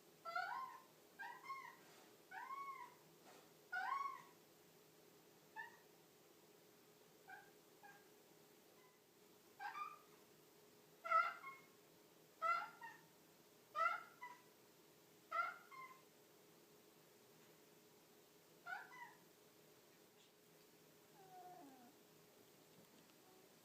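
Devon Rex cat giving a run of short meows, about a dozen, each a quick rise and fall in pitch. They come in bunches of two or three with pauses between, and a fainter, lower call slides downward near the end.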